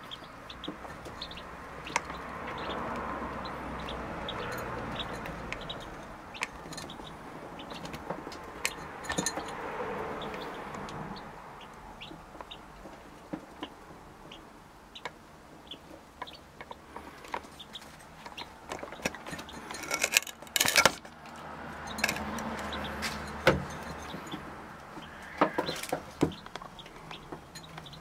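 Grey partridge chicks peeping and the hen clucking, over many small clicks and scratches of pecking in the grit floor. A cluster of louder clicks comes about twenty seconds in.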